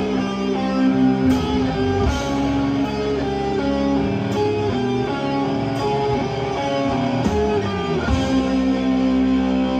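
Death metal band playing live, with distorted electric guitars holding slow, sustained chords that change every second or two. A cymbal is struck now and then.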